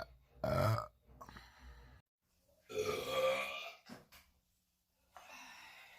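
A woman belching: two loud, pitched belches, one about half a second in and one around three seconds in, with quieter sounds in between.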